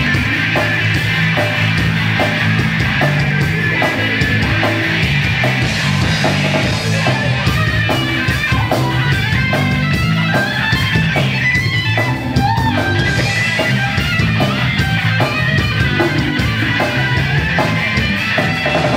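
Live punk rock trio playing: electric guitar, electric bass and a drum kit, with a steady driving drum beat.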